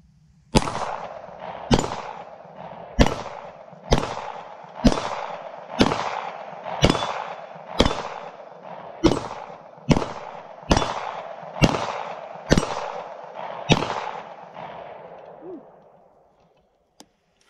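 SAR9 9mm pistol fired about fourteen times at a steady pace of roughly one shot a second, each report ringing out with an echo. The string stops short of a full magazine when the pistol misfeeds on remanufactured ammunition.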